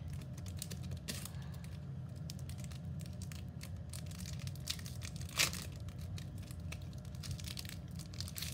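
Foil Pokémon booster pack wrapper crinkling as it is handled, a run of small crackles with one louder crackle about five seconds in.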